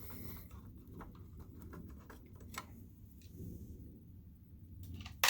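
Small clicks and scrapes of a screwdriver working a chassis screw into a projector's plastic housing, busiest in the first few seconds, with one sharp click near the end.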